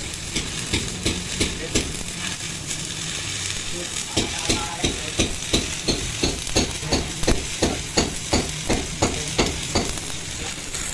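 Stick-welding arc crackling and sizzling steadily as a spindle is welded onto a steel truck axle housing. From about four seconds in, regular sharp clicks, about three a second, run alongside.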